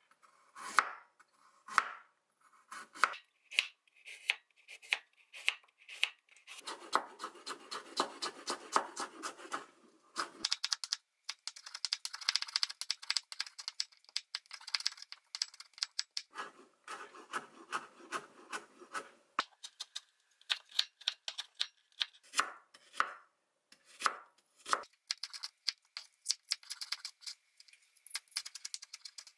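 Chef's knife chopping on a wooden cutting board, cutting carrot into rounds and thin strips and then onion near the end: separate strokes mixed with several runs of fast, rapid chopping.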